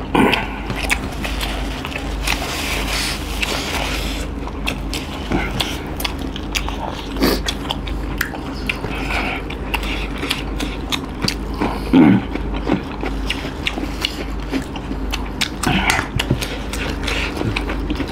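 Close-up eating sounds of chicken curry and rice eaten by hand: wet chewing, biting and mouth clicks, with a steady low hum underneath. A brief louder voiced sound comes about twelve seconds in.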